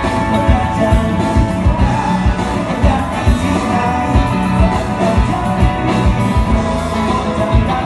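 Live band playing a pop-rock song: a woman singing over keyboard and electric guitars, with a steady low beat.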